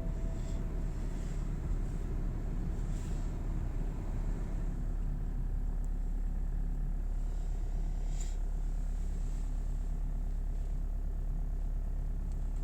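Diesel car engine idling steadily just after a cold start, a low even rumble with a few faint light ticks.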